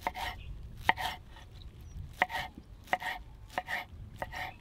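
Knife chopping food on a cutting board: six separate strokes, each a sharp knock followed at once by a second one, unevenly spaced.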